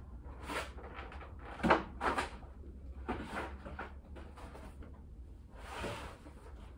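Several brief bumps and rustles of objects being handled, the loudest about a second and a half in, over a low steady hum.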